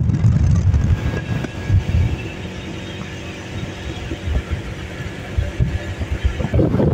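Motorcycle under way: wind buffeting the microphone in low, uneven rumbles over a faint steady engine hum. The buffeting eases off in the middle and picks up again near the end.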